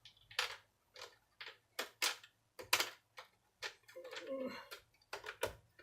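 Irregular sharp clicks and taps of screws being set into the plastic housing of a Miele vacuum cleaner during reassembly. A brief hummed vocal sound comes about four seconds in.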